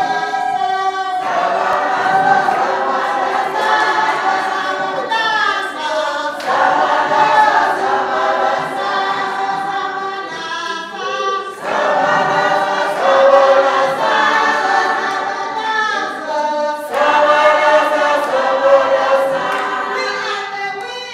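A group of women singing together in harmony, unaccompanied, in phrases of a few seconds broken by short pauses.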